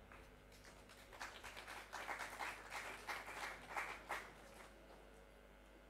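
Audience applauding faintly, picking up about a second in and dying away after about four seconds.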